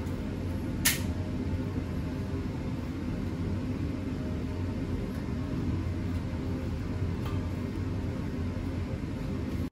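Steady low rumble of kitchen machinery, with one sharp click about a second in.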